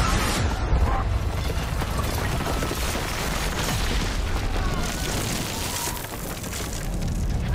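Battle sound effects from a film: a dense, steady rumble of explosions and billowing debris, with faint shouting voices mixed in. The din eases briefly near the end, then builds again.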